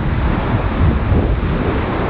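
Strong gusty wind buffeting the microphone, a heavy low rumble and rush of wind noise that rises and falls with the gusts.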